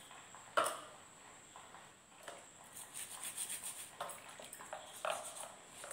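A brush scrubbing a person's feet in short rubbing strokes, quickening around the middle, with a sharp click about half a second in.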